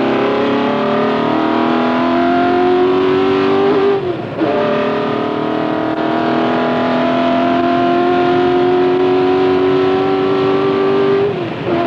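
Ford GT40's V8 engine at full throttle, heard from on board, its pitch climbing slowly as the car accelerates. It drops with an upshift about four seconds in, climbs again in the next gear, and drops with another upshift near the end.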